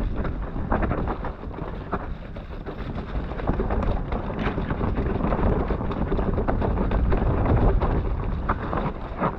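Mountain bike descending a wet, muddy dirt trail: wind buffeting the action camera's microphone over the tyres rolling through mud and roots, with frequent knocks and rattles as the bike hits bumps.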